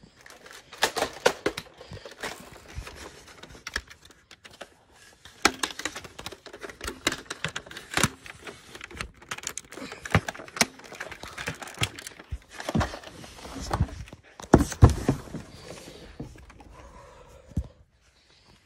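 Toys being handled close to the microphone: a plastic toy blaster and plush toys rustling and knocking together in irregular clicks and clatters, with a few louder knocks.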